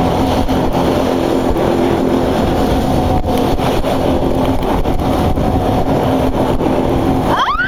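Jet ski engine running steadily at speed, its drone mixed with wind and water noise. A person's voice cries out near the end.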